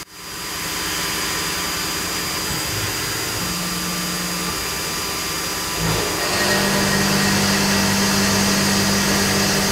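Tormach PCNC 1100 CNC mill spindle turning a quarter-inch four-flute carbide end mill at 2700 rpm, milling 4140 steel bar on the 4th axis, over a steady hiss. The sound grows louder about six seconds in, with a steady low hum added.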